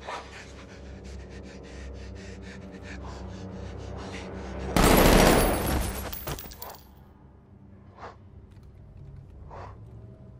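An ape's panting breaths with a few short grunts. About five seconds in comes a sudden loud blast that dies away over a second or so.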